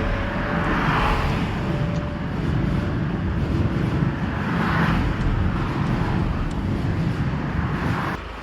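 Strong wind buffeting the microphone over road traffic, a steady low rumble with several louder swells.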